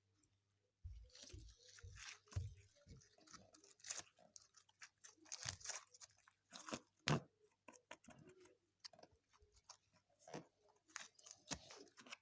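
Homemade slime being squished and worked by hand: an irregular run of small clicks and crackles that starts about a second in.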